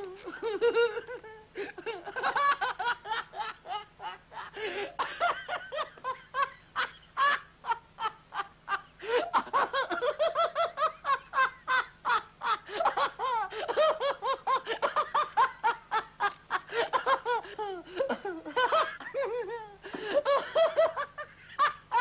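Two men laughing helplessly in a long laughing fit, fast repeated 'ha-ha' bursts several a second with the pitch swooping up and down.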